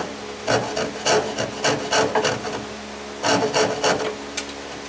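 Hand file scraping back and forth in a slot cut in a painted wooden panel: a quick run of strokes, a short pause, then a few more. The file is taking off a small splinter at the edge of the slot.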